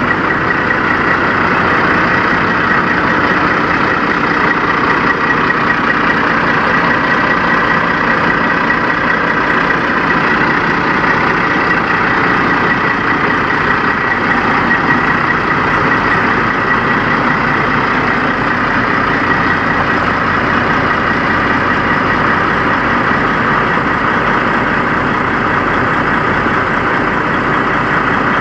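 Kenworth semi tractor's diesel engine idling steadily, with a thin steady high whine over the engine sound.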